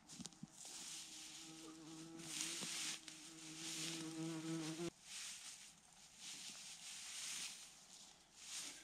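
A flying insect buzzing close to the microphone in a steady hum that stops abruptly about five seconds in, with washes of hiss coming and going.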